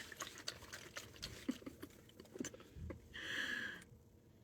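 Faint handling of a coconut water container: many small clicks and taps, a couple of soft low blips, and a short breathy hiss about three seconds in.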